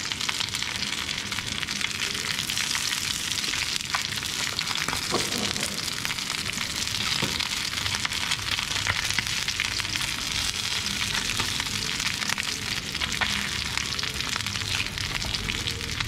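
Fish steaks sizzling as they pan-fry in a shallow layer of oil, a steady hiss of a crisp, golden-brown finish, with a few light clicks as chopsticks turn the pieces.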